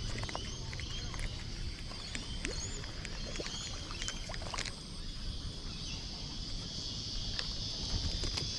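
Outdoor ambience: a steady low rumble under a steady high hiss, with scattered faint chirps and a few light clicks.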